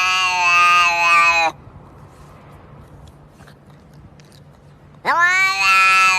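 A cat giving two long, drawn-out meows: the first breaks off about a second and a half in, and the second starts near the end after a short pause.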